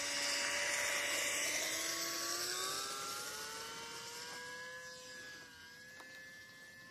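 E-flite Icon A5 RC plane's electric motor and pusher propeller whining under power as it takes off. The pitch rises steadily over a few seconds while the sound fades as the plane flies away.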